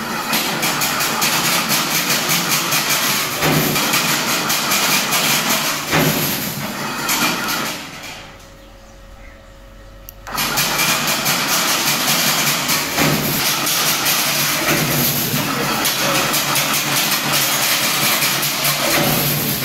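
Chain link fencing machine running with a loud, dense mechanical clatter. About eight seconds in it stops and drops to a faint hum, and about two seconds later it starts again, switched on by remote control, and clatters on.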